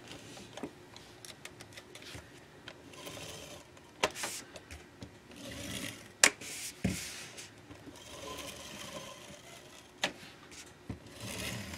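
Handheld Fast Fuse adhesive applicator being run across the back of a cardstock strip: a faint rasping whir in several short strokes, with a few sharp clicks between them.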